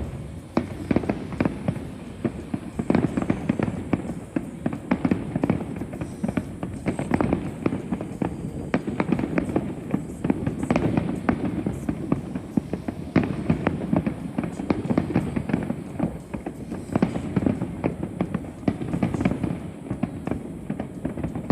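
Aerial fireworks going off in a rapid, continuous barrage: many sharp bangs a second, overlapping over a steady low rumble.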